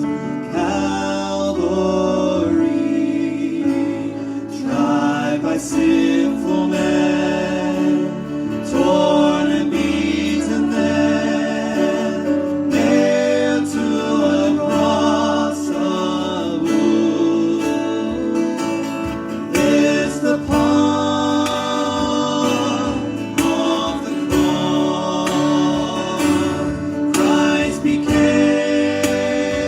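A worship song sung by voices over guitar-led band accompaniment, continuing without a break.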